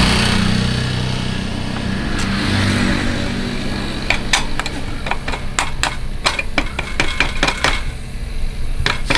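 Rear drum-brake adjuster nut on an old motorcycle's brake rod being turned by hand, giving a quick, irregular run of sharp metallic clicks from about four seconds in. Before that, a steady engine hum fades away.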